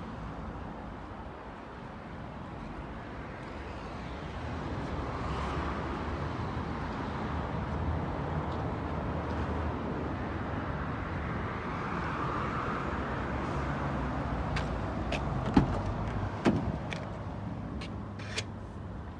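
BMW 220d's four-cylinder diesel engine idling steadily at the exhaust. A few sharp clicks and knocks near the end as the driver's door is opened.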